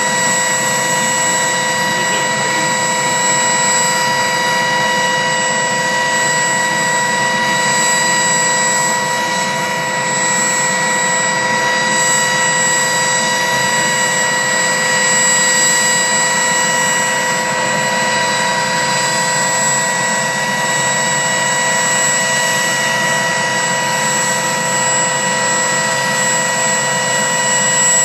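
Firefighting helicopter's turbine engines running with a steady whine of several held tones over a constant rush.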